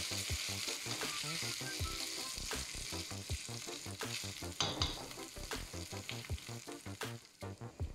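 Raw rice frying in hot oil in an enamel pot, sizzling steadily as a spatula stirs and scrapes through the grains: the rice being toasted before the liquid goes in. The sizzle thins out near the end.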